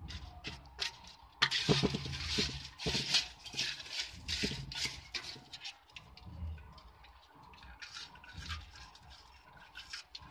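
Live crabs clicking and scraping their shells and legs against each other and the tub, with shallow water splashing and dripping around them. A louder, busier stretch of splashing and clicking runs from about a second and a half in to about five seconds in, then the clicks thin out.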